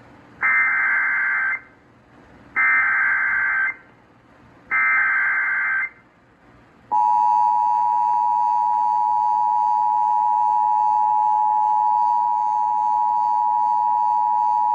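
Emergency Alert System tones on a radio broadcast: three short, buzzy SAME header data bursts about a second apart, then the steady two-tone EAS attention signal, which starts about seven seconds in and holds. They open a flash flood warning.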